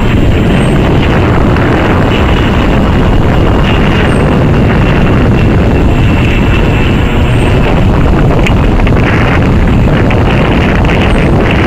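Bombardier CRJ-900 regional jet passing overhead, its twin rear-mounted GE CF34 turbofans giving a loud, steady jet roar.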